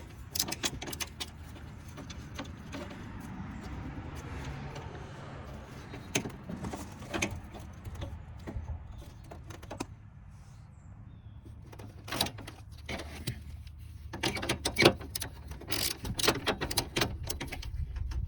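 Hand ratchet on a 10 mm socket clicking in short irregular runs, with light metal handling clicks, as fender bracket bolts are loosened. A low steady hum runs underneath.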